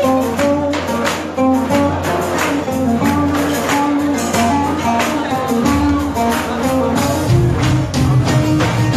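Loud dance music with a steady beat, about two strokes a second, under a stepping melody.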